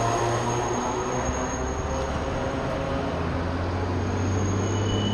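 Steady low drone of idling vehicles and tram traffic, with a thin high whine above it.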